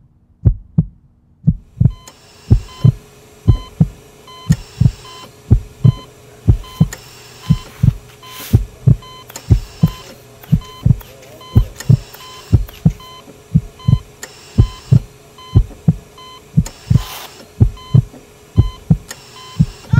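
A heartbeat thumping about twice a second. From about two seconds in, short electronic beeps repeat steadily over a low hum.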